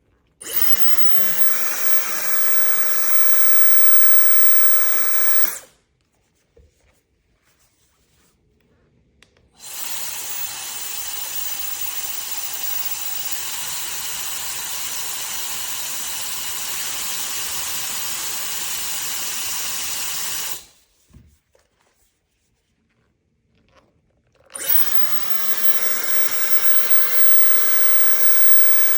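Ionic hair dryer blowing air: a steady rush with a faint motor whine. It is switched on and off three times, running for about five, ten and four seconds, with silent pauses between.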